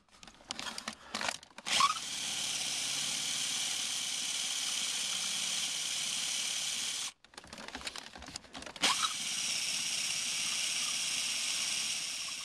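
Cordless drill boring down through a car floor of rubber over aluminium, running steadily in two runs of about five and three and a half seconds, with a sudden stop and a few knocks of handling between and before them.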